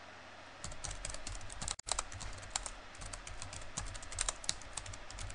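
Computer keyboard typing: a fast, uneven run of key clicks that starts about half a second in.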